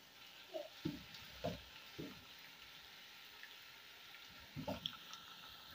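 Onions, ginger and garlic frying in oil in a pot, with a faint steady sizzle. A wooden spoon stirs them, knocking and scraping against the pot several times in the first two seconds and twice more near the end.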